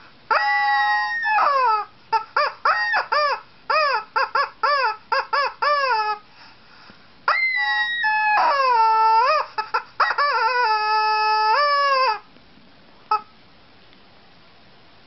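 Yellow rubber squawking chicken toy squeezed by hand: two long squawks, then a quick run of about a dozen short squawks, then long drawn-out squawks that dip and rise in pitch, stopping about twelve seconds in.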